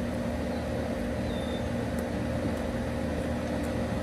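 Steady hum of an air conditioner's outdoor unit running, a few steady tones over an even low drone.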